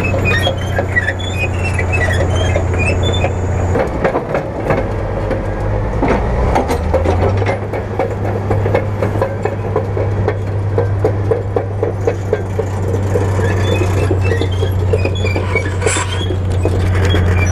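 Caterpillar D10 bulldozer's diesel engine running under heavy load as it drags a single ripper shank through hardpan soil. It is a steady low drone with constant clanking and rattling from the steel tracks and breaking clods, and the drone dips and picks back up about four to seven seconds in.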